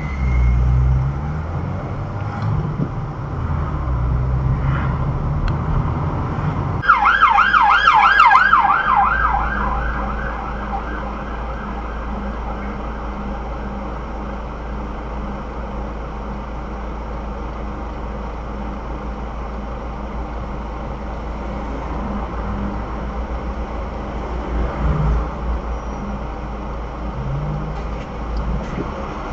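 A siren sounds a fast yelping warble for about two and a half seconds, starting about seven seconds in. Under it runs the steady road and engine rumble of a car in traffic, heard from inside the cabin.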